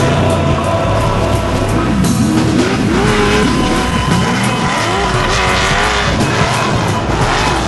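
Off-road race vehicle engines revving, their pitch rising and falling repeatedly, mixed with background music.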